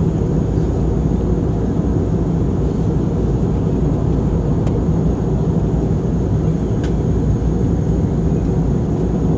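Steady cabin noise of a jet airliner in flight: a constant low rumble of engines and rushing air.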